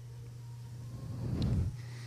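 A steady low hum, with a short soft rustle about a second in.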